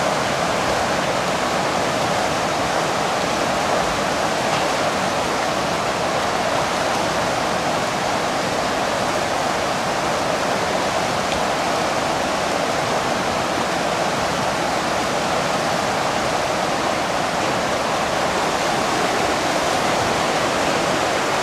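Steady rush of river water pouring through the gates of a weir.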